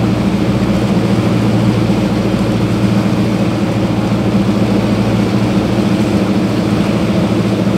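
Engine of a bangka outrigger boat running steadily under way, a constant low hum with a rush of wind and water over it.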